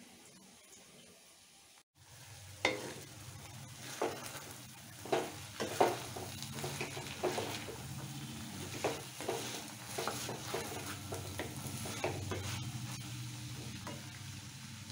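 Wooden spatula stirring boiled chana dal (split Bengal gram) in a hot kadai: steady sizzling, with irregular scrapes and knocks of the spatula against the pan. It starts about two seconds in, after a near-quiet opening.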